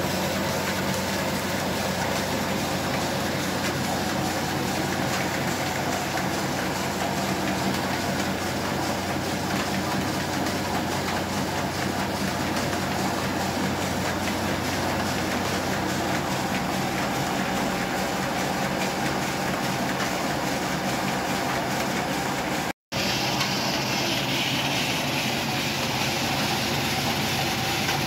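Belt-driven flour mill machinery running: an electric motor turning a line shaft whose flat belts and pulleys drive a grain grinder (atta chakki). Steady mechanical hum and whirring that drops out for an instant about three-quarters of the way through.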